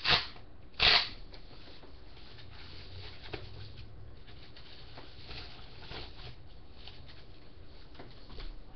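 Packing paper and a thin nylon bag crinkling and rustling as they are pulled off a guitar: two loud crinkles less than a second apart at the start, then softer, scattered rustling.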